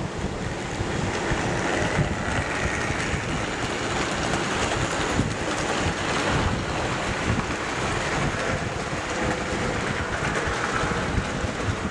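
Tri-ang OO-gauge model Class 8P 'Princess' steam locomotive and its train running on the layout's track: a steady whirr of the electric motor and wheels on the rails.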